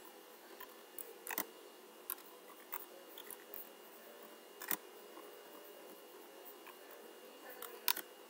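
Computer keyboard being typed on, irregular soft key clicks with a few louder taps, over a faint steady hum.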